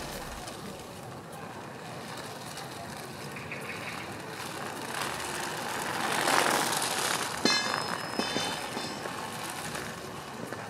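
Mould King 18001 desert racer, a brick-built remote-control buggy, driving on asphalt: its electric drive motors and tyres make a noisy whir that swells as it passes close, about six seconds in. Just after, there is a sharp click and a brief run of rapid high chirps.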